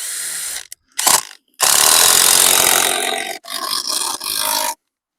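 Power drill driving screws into wood in four bursts, the longest nearly two seconds, cutting off abruptly near the end.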